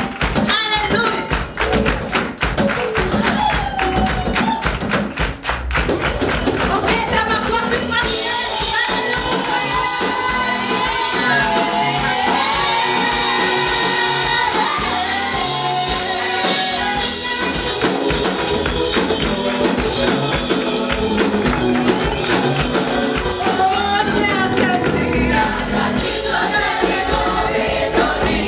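Live gospel praise music: a group singing over a band with a fast steady beat, the singing fuller from about eight seconds in.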